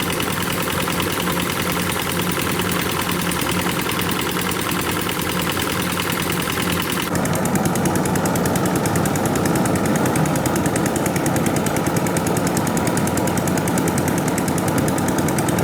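Kubota rice combine harvester's diesel engine running hard with a fast, even knocking beat; the sound changes abruptly and grows slightly louder about halfway through.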